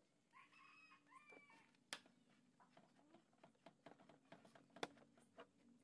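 A faint pitched animal call, about a second and a half long, shortly after the start, followed by scattered light clicks and taps.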